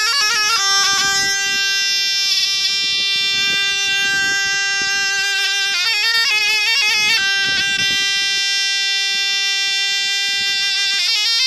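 Zurna played solo: a reedy, bright melody of long held notes broken by quick ornamented runs near the start and again about six seconds in.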